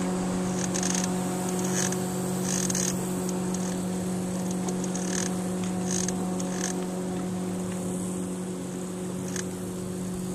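Wake from a passing pontoon boat slapping and splashing against the hull of a small fishing boat in irregular bursts, over a steady motor hum.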